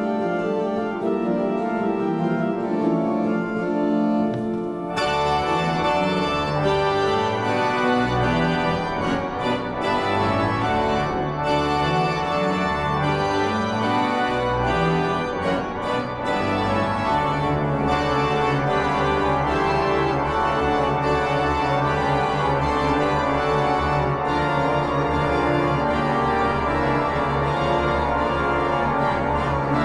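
Church organ playing a sustained, full-voiced piece; about five seconds in the sound grows fuller and brighter and a deep bass line comes in.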